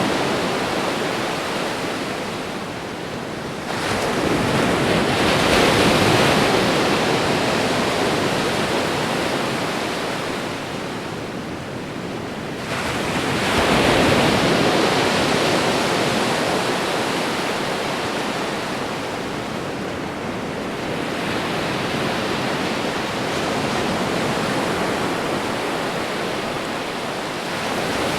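Ocean waves washing onto a shore: a steady rush of surf that swells louder as a wave comes in about four seconds in and again about thirteen seconds in, with a softer swell near the end.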